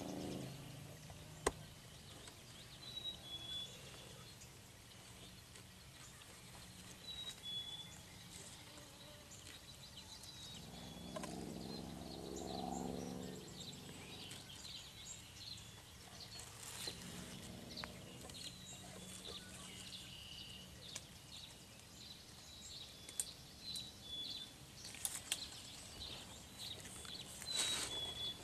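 Outdoor ambience with a small bird repeating a short whistled call of two notes, the second lower, every few seconds. Light rustling and knocks of grass against the camera are heard, and a low hum swells and fades near the middle.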